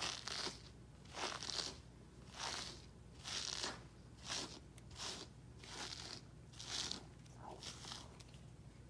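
Slicker brush raking through a timberwolf's thick coat, a scratchy swish about once a second as it pulls out loose shedding undercoat. The strokes grow fainter near the end.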